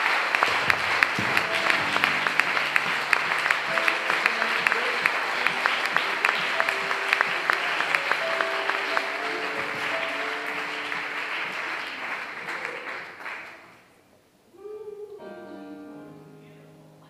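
Audience applauding with many hands clapping, while soft sustained instrument notes play underneath. The applause fades out about fourteen seconds in, and quiet instrumental notes begin a new passage.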